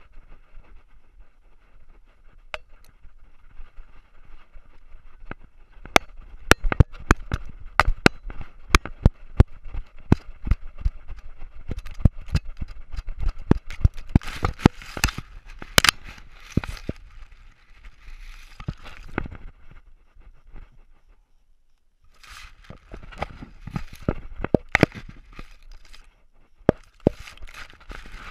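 Collar-mounted action camera in its housing knocking and rattling as the dog wearing it runs: irregular sharp clicks and bumps, dense from about six seconds in, with a short lull about three-quarters through.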